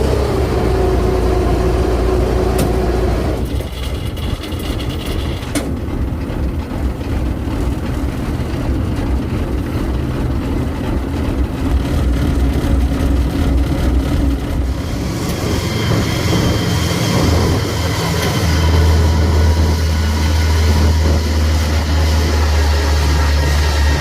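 Engine of rice-harvesting farm machinery running, its pitch dropping slightly at first and the sound shifting about three and a half seconds in. From about 15 seconds it grows fuller, and a strong low hum sets in near the end.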